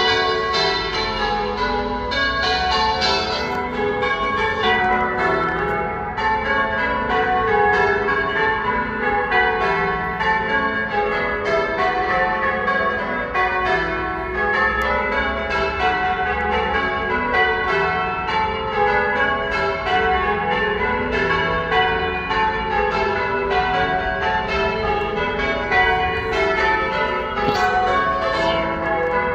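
Church bells ringing: a ring of tower bells struck one after another in quick succession, their tones overlapping in a steady, unbroken stream.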